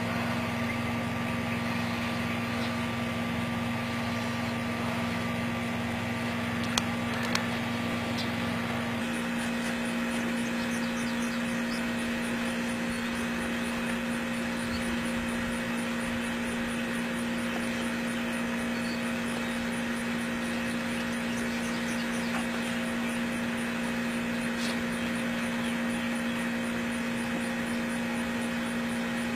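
A steady machine hum with several steady tones in it, its character shifting slightly about nine seconds in; two short clicks sound around seven seconds in.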